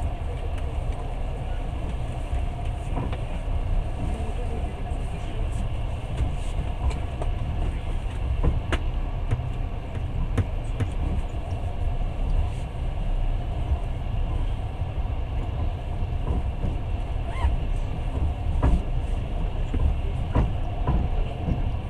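Long-distance passenger train running along the track: a steady low rumble with occasional sharp clicks and knocks from the wheels and carriage.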